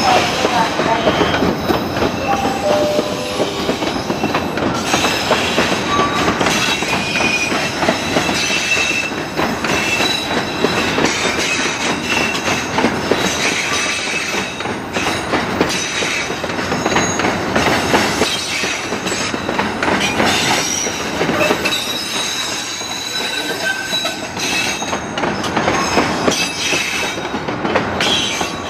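Container freight train's loaded flatcars rolling past close by, a steady dense rattle and clatter of wheels on rail, with many short high-pitched squeals from the wheels.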